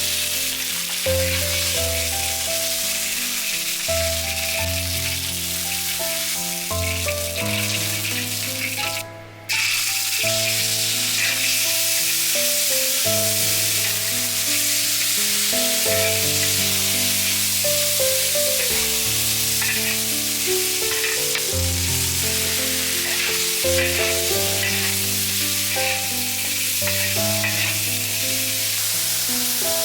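Food sizzling as it fries in hot oil, with gentle background music of held, stepping notes. Both cut out briefly about nine seconds in.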